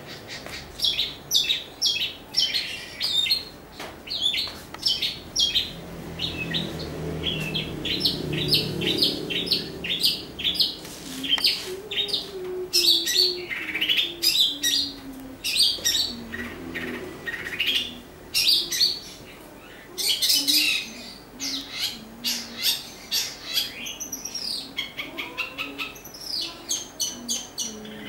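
Caged green leafbird (cucak hijau) singing: a long, lively run of quick, varied chirps and whistled notes, with short pauses between phrases.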